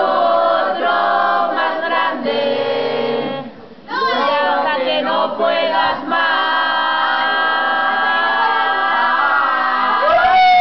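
A group of voices singing a Spanish drinking song in chorus, dragging out one long note for several seconds, then a falling slide at the end.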